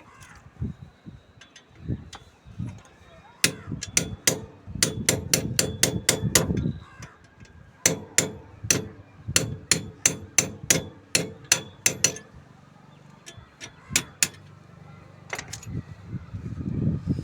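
Repeated hammer blows: two long runs of sharp strikes at about two to three a second, then a few scattered strikes near the end.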